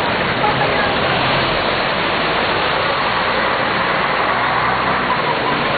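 A steady rushing wash of floodwater, with a bus engine running close by as it wades through the water.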